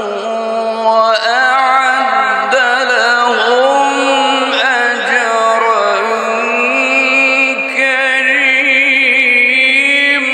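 A male Quran reciter chanting in the melodic tajweed style, holding one long ornamented phrase whose pitch wavers and glides, climbing to a higher register about halfway through.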